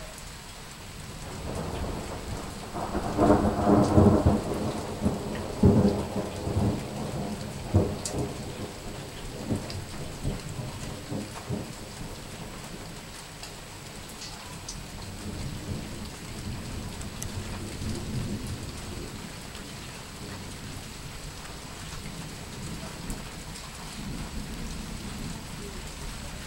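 A peal of thunder over steady rain: it builds about a second in, is loudest with sharp cracks between about three and eight seconds in, then rolls on in fading rumbles.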